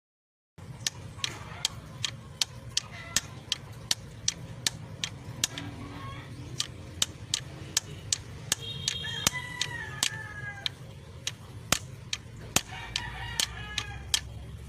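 Rapid, evenly spaced sharp taps, about three a second, consistent with tool work on the Isuzu 4JX1 engine's injector sleeve. Chickens cluck and a rooster crows in the background, mostly in the middle and near the end.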